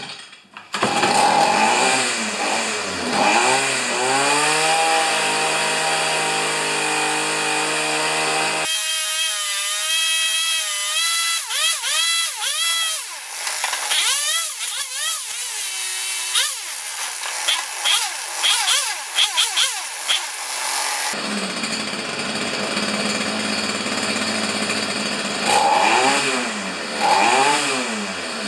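Stihl FS45 string trimmer's small two-stroke engine catching about a second in and running, revved up and down again and again with the throttle. Its carburettor mixture screw has been turned out a quarter turn for a touch more fuel, and the engine is not yet fully warm.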